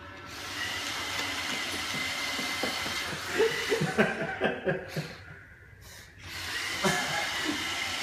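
Roomba robot vacuum running across a hardwood floor, a steady hiss and faint whine that dips away briefly past the middle. Short bursts of adult chuckling come in a little before halfway.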